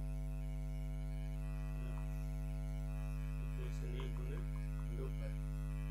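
Steady electrical mains hum with a stack of buzzing harmonics, unchanging throughout. Faint short sounds come and go over it in the second half.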